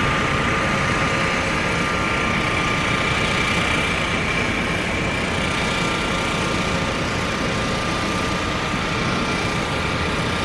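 A car's air conditioning blowing hard inside the cabin, a steady rush of air with a faint constant whine, over the engine running.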